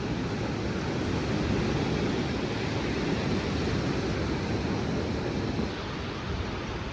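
Waves on the shore and wind on the microphone, a steady rush of noise with no distinct events.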